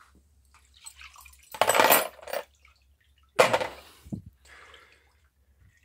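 Liquid sloshing and pouring as a plastic strainer basket of steel screwdriver tips is dunked and lifted in a bucket of Evapo-Rust rust remover, in two short splashing bursts, the second as the basket drains.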